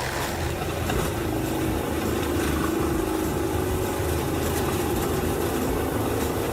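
Engine of a large wood chipper running steadily, with an even hum and no change in load.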